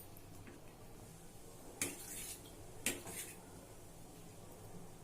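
Kitchen utensils clinking against cookware twice, about a second apart, over a faint steady low hum.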